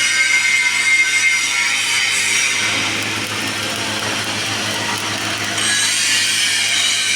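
Stick (SMAW) welding arc burning steadily: a continuous hiss with a high whine over a low electrical hum.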